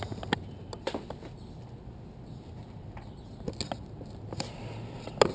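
Scattered light clicks and taps over a low steady background, with a short cluster of sharper clicks near the end.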